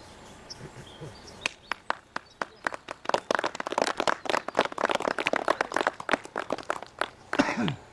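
A small group clapping: a few scattered claps at first, then steady applause for a few seconds that thins out, with a short voice near the end.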